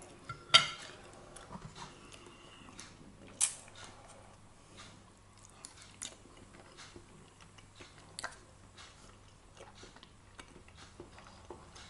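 A person chewing a mouthful of breaded, air-fried ham-and-cheese potato skin, with small mouth ticks throughout. A few sharp clicks stand out, the loudest about half a second in, another at about three and a half seconds and a smaller one near eight seconds.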